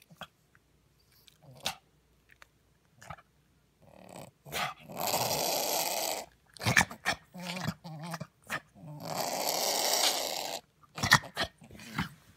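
Poodle snorting and snuffling right at the microphone: two long, noisy snorts of about a second and a half each, with short sharp snorts between and after them.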